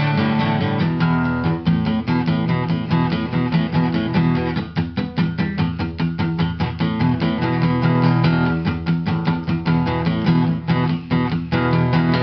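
Background music: acoustic guitar playing picked and strummed chords at a quick, even pace.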